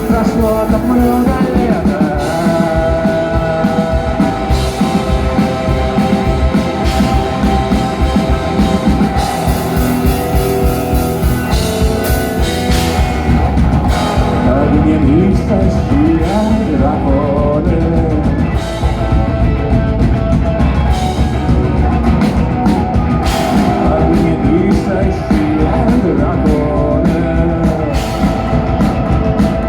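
Rock music: drums, guitars and a singing voice.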